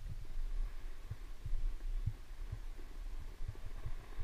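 Wind rumbling and buffeting on the microphone of a camera carried by a skier going down a groomed run, with irregular low thumps as the skis ride over the snow.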